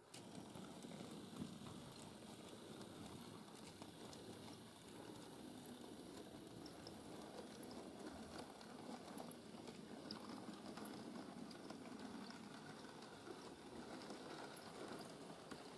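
OO-gauge model steam tank locomotive, a North Eastern Railway E1/J72, running along the track hauling mineral wagons. Its motor and wheels make a faint, steady rumble with light scattered clicks.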